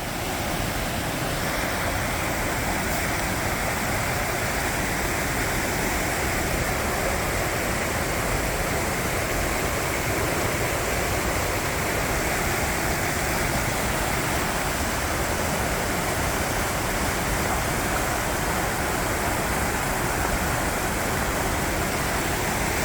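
Steady rushing of falling water from a waterfall and river.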